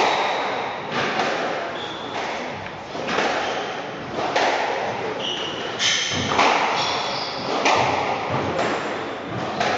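A squash rally: the ball hit back and forth by rackets and off the walls, a sharp echoing crack about once a second. Between the hits come short high squeaks of court shoes on the wooden floor.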